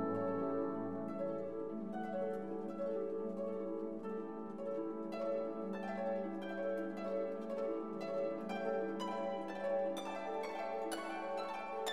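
Background music carried by plucked string notes over held tones, the plucked notes coming faster in the second half.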